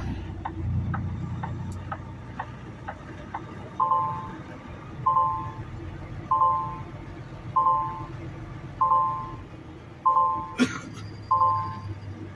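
Semi truck's diesel engine idling low under faint even ticks, about two a second, typical of a flasher relay. From about four seconds in a two-tone reverse warning beep sounds a little over once a second, each beep sharp and fading, as the rig backs into a parking spot. A short sharp noise comes about ten and a half seconds in.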